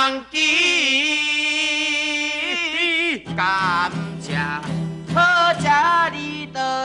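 Two men singing a folk song to acoustic guitar. They hold one long note for about three seconds, then sing shorter phrases over the strummed guitar.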